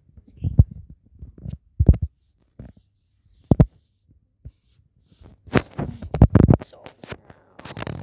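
Handling noise on a phone's microphone: irregular dull thumps and rubbing as the phone is moved about and its lens covered. The thumps come thicker from about halfway through.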